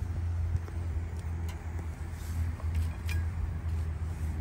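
A steady low rumble runs under light metallic clinks of tongs against a wire grill basket, with two sharper clicks about a second and a half and three seconds in.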